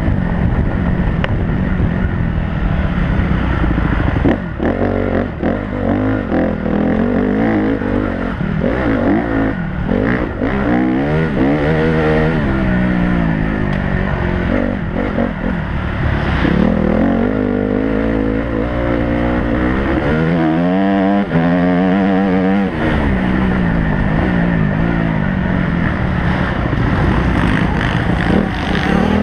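Motocross bike engine heard from on board during a race lap, revving up repeatedly and dropping back between shifts and corners, with occasional knocks from the track.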